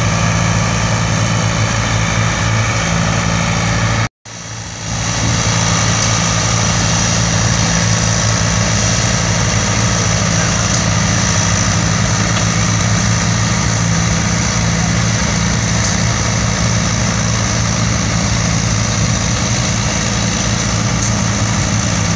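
Antique farm tractor's engine running steadily under load as it pulls a weight-transfer sled. The sound cuts out for a moment about four seconds in and fades back up over the next second.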